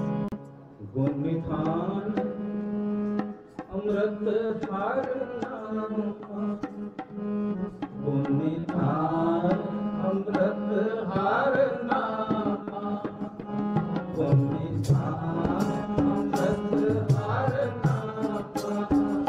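Sikh kirtan: a male voice sings over held harmonium chords, with tabla strokes that grow busier in the second half.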